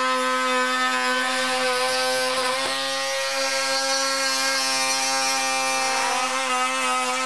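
Ryobi oscillating multi-tool running with a steady, even-pitched buzz, its saw blade plunge-cutting a notch into a wooden door jamb.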